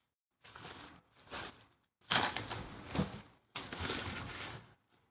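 Rustling of a snack packet and clicking of mixed almonds and cashews being shaken out and handled, in four short bouts.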